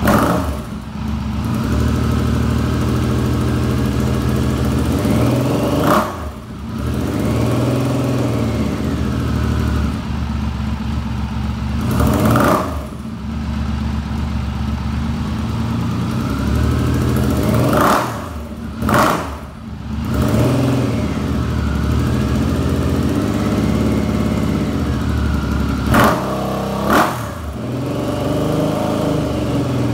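1999 Triumph Thunderbird's three-cylinder engine running as it warms up from a cold start, revved briefly every few seconds so the pitch rises and falls, with two quick revs close together twice in the second half.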